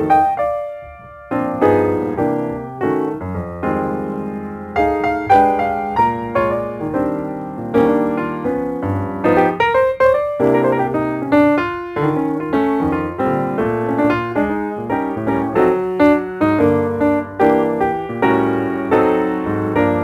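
Piano music: a steady flow of struck notes and chords, each ringing and fading before the next.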